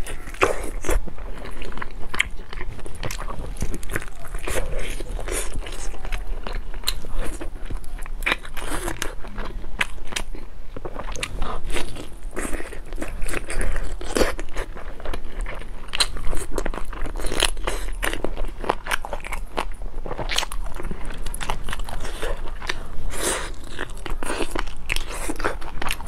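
Close-miked eating: biting into and chewing steamed chicken, with many quick, irregular clicks and crunches of the mouth.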